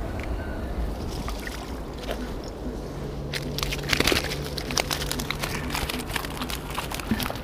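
Water splashing and dripping as a fishing keepnet holding caught fish is handled and lifted out of the river, with crackling mesh and rustling. The handling is quiet at first, then turns into dense splashes and clicks from about three seconds in, loudest about four seconds in.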